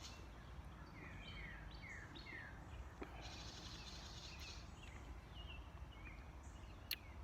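Faint birds chirping over a steady low background hum: a few short down-slurred notes, then a buzzy trill and more small chirps. A single sharp click comes near the end.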